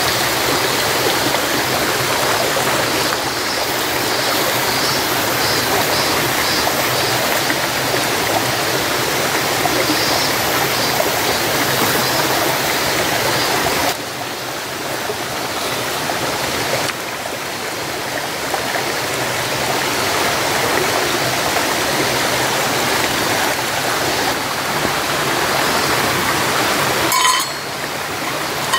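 Mountain stream rushing steadily over rocks, with a short sharp click near the end.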